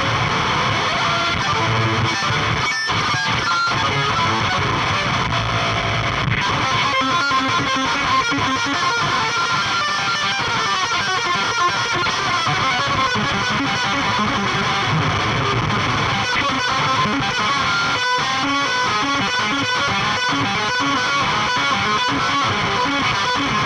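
Heavily distorted electric guitar played without a break through the Otto Audio Blown Out Wall chainsaw-style distortion plugin and an external fuzz pedal.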